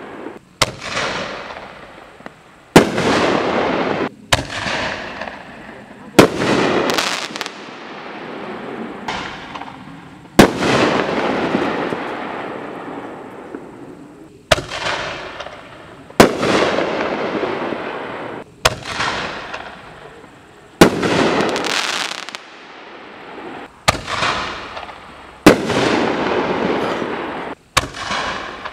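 A 24-shot fireworks cake firing its shells: about fifteen sharp bangs, one every one to four seconds, each followed by a decaying echo.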